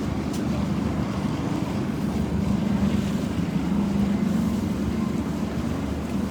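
Snowstorm wind buffeting a phone microphone over a steady low rumble.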